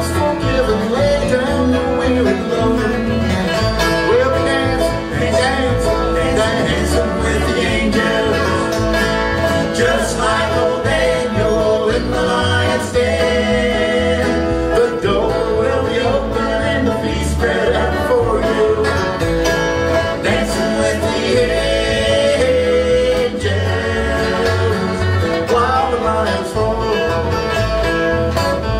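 Live bluegrass band playing: banjo, acoustic guitar and fiddle over upright bass, with steady continuous picking.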